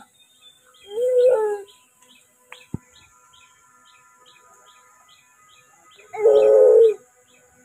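Doves cooing: a short coo about a second in and a louder one about six seconds in. Between them a small bird's high chirp repeats steadily about three times a second, with a single sharp tap near three seconds.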